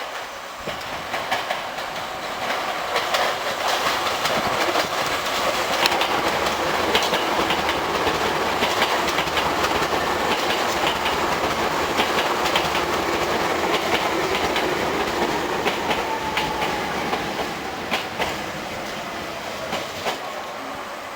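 Hankyu 3300 series seven-car electric train pulling into a station: wheels clack over rail joints while the running noise builds, then a whine falls steadily in pitch as the train slows.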